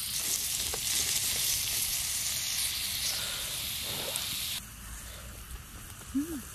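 Korean beef sizzling on a hot stone griddle over a campfire, a steady hiss that cuts off suddenly about two-thirds of the way through. After that it is quieter, with a short hum from a person near the end.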